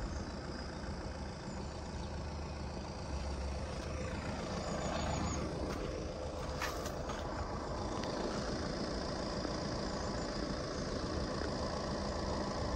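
Steady low rumble of a car engine idling at a closed level-crossing barrier, over outdoor ambience.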